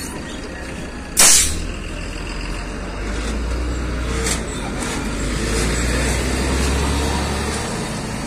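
LiAZ 6213.22 articulated city bus: a short, loud hiss of compressed air from its pneumatic system about a second in, then the diesel engine's low drone swells for several seconds and falls away near the end.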